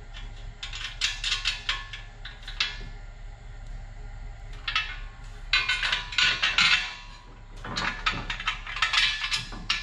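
Steel carriage bolts and brackets clinking and rattling as bolts are pushed through the holes of a steel receiver weldment and platform extension. The clinks come in three bunches.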